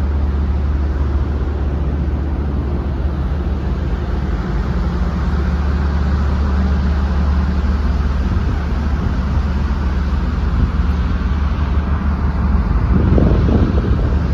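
Steady, loud, low drone of the car ferry's engines and machinery, heard from its open deck. Wind gusts on the microphone near the end.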